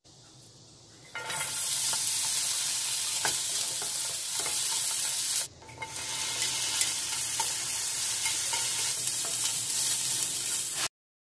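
Julienned vegetables (yellow bell pepper, then carrot) sizzling and being stir-fried in hot oil in a nonstick frying pan. A faint hiss turns into loud, steady sizzling about a second in; it breaks off for a moment at about five and a half seconds, builds again as the pepper strips slide in, and cuts off suddenly near the end.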